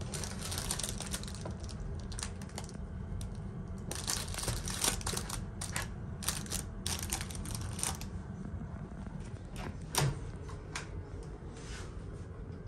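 Low, steady drone of the ferry's engines and machinery, with irregular clicking, rattling and crinkling from objects being handled close by, and one sharper knock about ten seconds in.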